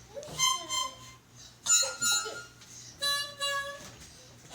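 Harmonica blown in three short, uneven bursts of reedy chords, random noise-making rather than a tune.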